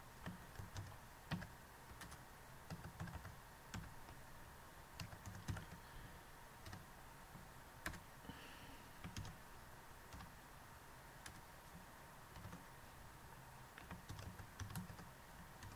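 Faint typing on a computer keyboard: scattered single keystrokes at an irregular pace with short pauses between them, thinning out for a few seconds past the middle.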